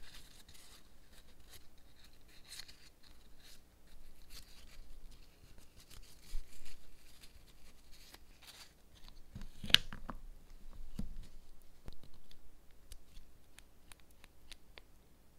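Small handling sounds of manicure work: scattered light clicks and short scrapes of nail tools and tips, with one sharper click about ten seconds in.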